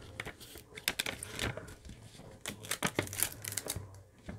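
Protective release paper being laid back over an adhesive diamond painting canvas and smoothed down by hand, crinkling and rustling in short, uneven bursts.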